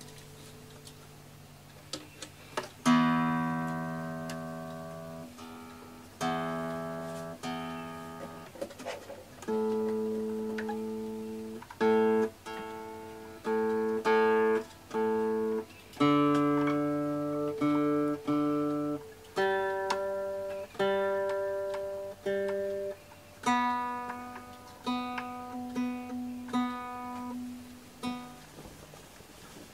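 Acoustic guitar music: slow strummed chords beginning about three seconds in, each left to ring and fade before the next, a new chord every second or two.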